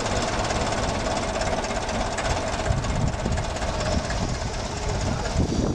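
Clark forklift's engine running steadily.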